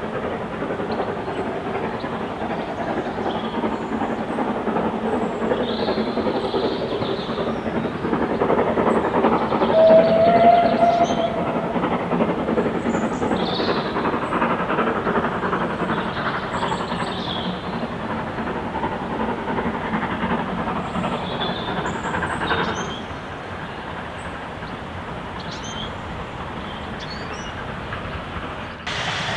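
Two 0-6-0 steam locomotives double-heading a train, the leader a Lancashire & Yorkshire Class 27 0-6-0, working steadily with a busy run of exhaust beats. About ten seconds in there is one short whistle blast that rises slightly in pitch. The sound drops in level a little after two-thirds of the way through.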